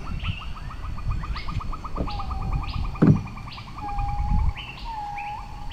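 Birds chirping, with a fast trill over the first three seconds and a few drawn-out whistled notes after it, plus two knocks from hand work on wooden trim, the second about three seconds in and the loudest.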